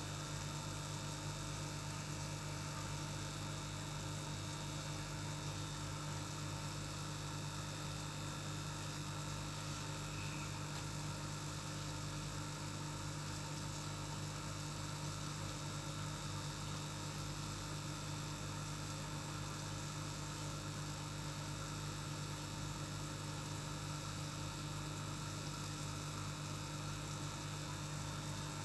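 Aquarium air pump humming steadily, with a constant hiss.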